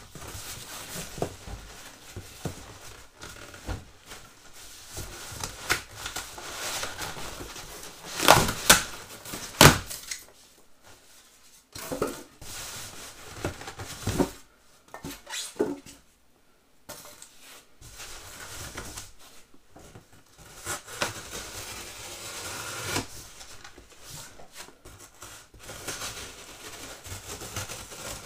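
Styrofoam and cardboard packing being pulled and shifted inside a cardboard box: irregular rustling, scraping and knocks, with a cluster of louder knocks about eight to ten seconds in.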